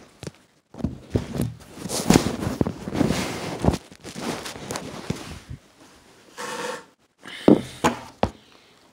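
Handling noise from a phone being moved against a knitted blanket: rustling and rubbing with a string of knocks and bumps. There is a short pitched sound about two-thirds of the way through, then a few more knocks.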